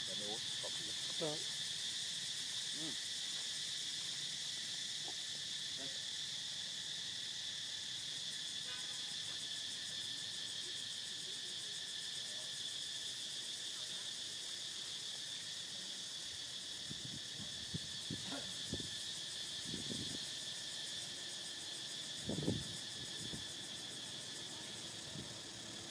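Steady high-pitched chorus of insects, such as cicadas or crickets, droning without a break. A few short, faint sounds come through it in the last third, the clearest about 22 seconds in.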